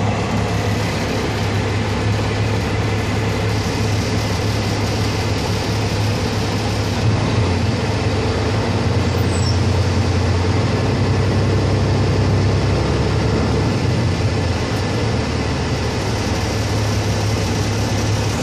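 Semi truck's diesel engine running, heard from inside the cab as a steady low hum that picks up a little for several seconds in the middle as the revs rise.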